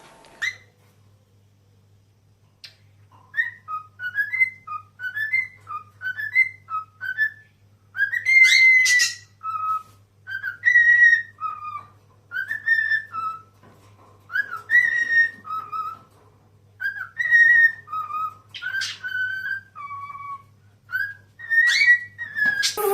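A pet parrot whistling a tune: a run of short rising whistled notes, then longer held notes, broken by a few sharp high chirps.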